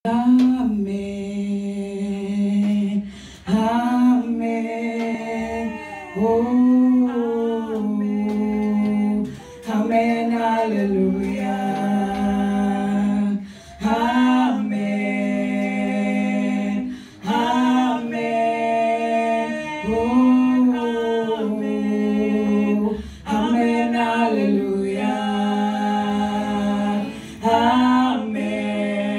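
Two women singing a gospel duet a cappella into handheld microphones. The song goes in sung phrases of a few seconds, each with a brief pause for breath.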